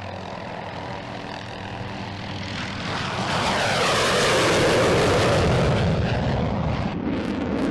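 A light helicopter's steady engine and rotor hum, then a MiG-29 jet fighter passing low overhead. Its jet noise swells from about two and a half seconds in, peaks in the middle with a sweeping, phasing hiss, and fades away.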